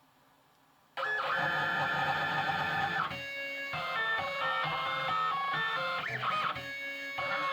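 Stepper motors of a desktop CNC milling machine whining as the axes move, starting suddenly about a second in. Several tones hold and jump in pitch every fraction of a second, with a quick rise and fall in pitch near the end as a move speeds up and slows down.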